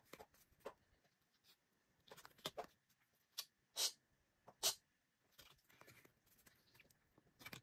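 Glossy photocards sliding against one another as a stack is flipped through by hand: a few short, faint swishes.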